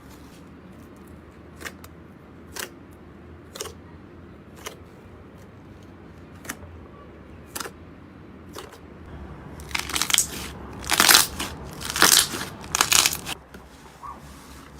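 Slime being worked by hand: sparse sharp clicks and pops, then a few seconds of loud crunching and crackling near the end.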